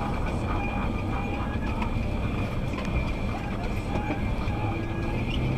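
Steady road noise inside a moving car on a wet road: engine and tyre rumble with tyre hiss, and a faint steady high whine over it.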